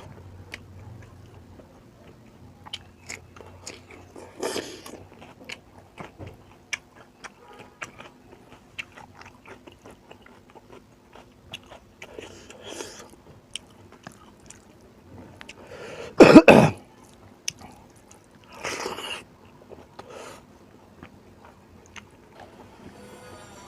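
Close-up eating sounds from chewing rice and beef curry, with many small wet mouth clicks throughout. There is one loud throat-clearing about two-thirds of the way through and a few shorter breathy sounds around it.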